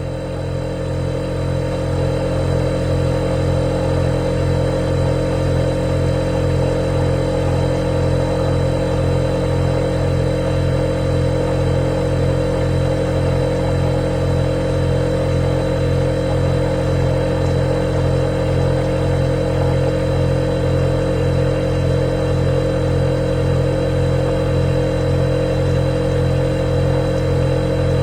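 Refrigerator running with a steady mechanical hum, its low drone pulsing evenly. It swells up over the first couple of seconds, then holds level.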